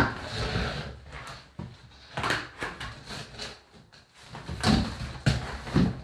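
Plastic clunks and knocks from a shop-vac's hose, wand and floor nozzle being handled and fitted together, with the vacuum still switched off. There is a loud knock at the start, then several scattered knocks.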